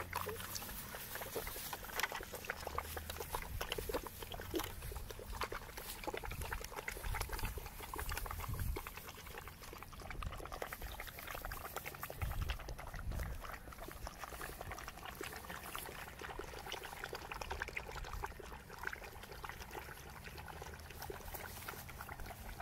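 German Shepherd puppies lapping water from a plastic bucket: a steady, dense run of small wet clicks and splashes, with a couple of low rumbles near the middle.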